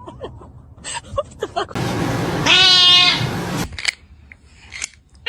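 A cat lets out a harsh hissing cry lasting about two seconds, with a steady-pitched yowl at its peak, typical of a cat fight. Faint small clicks come before it.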